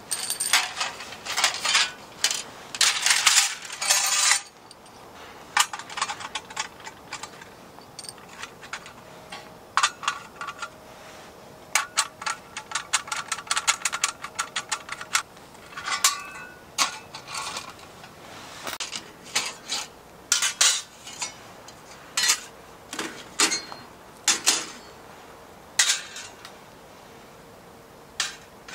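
Light metal clinks and clatters in irregular clusters, with a dense run of rapid clicks around the middle, as of small metal gear being handled.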